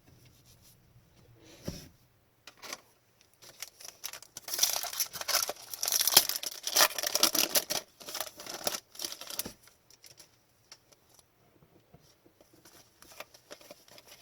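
Foil wrapper of a hockey card pack being torn open and crinkled by hand, a dense crackly rustle for about five seconds in the middle, with faint card-handling ticks before and after.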